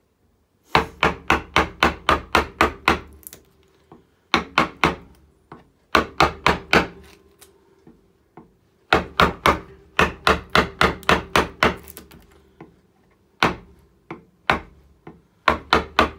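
A carver's mallet tapping a large carving gouge into alder wood, driving it to clear waste wood. The taps are sharp and quick, about four or five a second, and come in runs of several taps with short pauses between.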